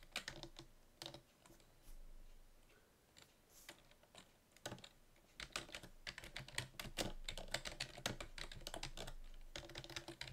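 Typing on a computer keyboard: a few scattered keystrokes at first, then a fast, steady run of typing from about halfway in.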